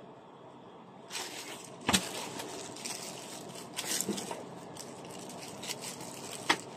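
Clear plastic packaging bag crinkling and rustling as it is pulled and torn open by hand, starting about a second in, with a few sharp crackles, the loudest about two seconds in.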